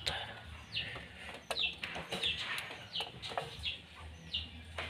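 A bird repeatedly giving short, falling chirps, about one every half-second to second. A couple of sharp clicks come from a small nut and screw being handled with a screwdriver on the printer's frame.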